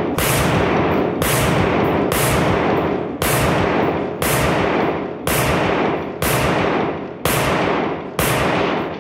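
Rifle shots fired in slow, steady succession, about one a second, each ringing on with a long echo that fills the gap before the next.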